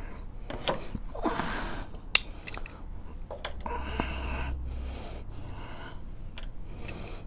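Close handling noise: rustling and breathy hiss picked up by a clip-on microphone as a man moves at a workbench, with a few light clicks and knocks from things being handled, the sharpest about two seconds in.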